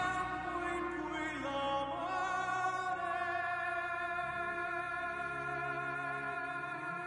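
Operatic singing with orchestral accompaniment: a voice with wide vibrato that settles into long held notes.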